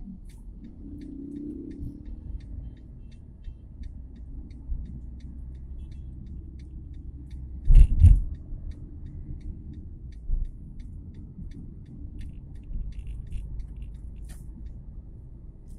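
Car cabin noise while driving: a steady low road-and-engine rumble with faint, regular ticking. A sharp double thump comes about eight seconds in, and a lighter knock near the end.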